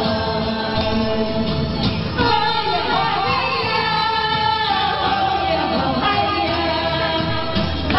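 Music with a singing voice, a held melodic line over accompaniment.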